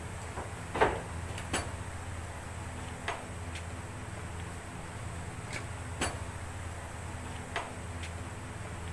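A steady low hum with scattered sharp metallic clicks and knocks, about eight at irregular intervals. The loudest comes about a second in. They fit hand tools and parts being handled during an engine oil and filter change.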